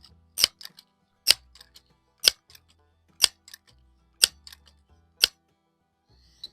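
Crosman 1322 multi-pump air rifle being pumped: its pump lever closes with a sharp clack about once a second, six strokes, each with a lighter click after it, charging the gun for the next shot.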